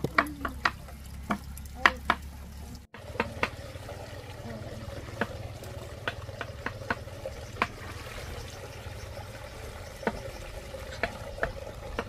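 Sharp clicks and scrapes as wild tubers are handled and cleaned; after a cut about three seconds in, scattered taps from a metal milk tin being dipped into ditch water, with light water sounds.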